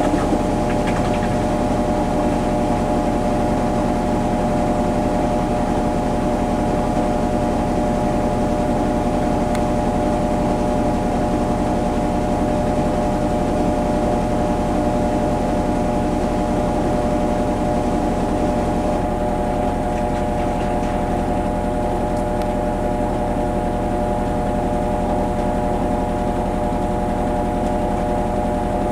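Kenmore Series 500 high-efficiency washing machine in its spin cycle, the drum spinning at a steady speed: a steady whine of several tones over a low hum.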